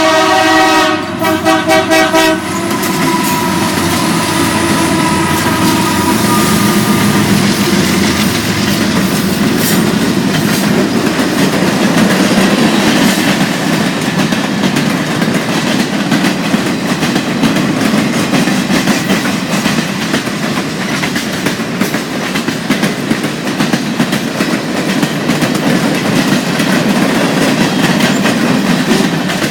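Horn of a CN SD70M-2 diesel locomotive sounding a chord that breaks briefly about a second in and cuts off about two seconds in. A freight train then rolls past, with a steady rumble and wheels clacking over the rail joints.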